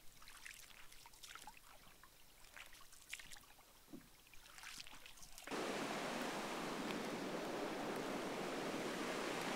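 Light water splashing and dripping alongside a canoe on a lake, then a sudden cut to the steady loud rush of whitewater in a creek rapid.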